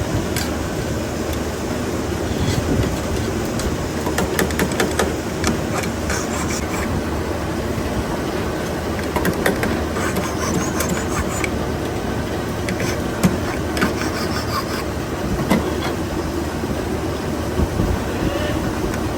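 Factory machinery running steadily, with scattered metallic clicks and clanks over it, thickest about four to six seconds in and again around ten seconds in.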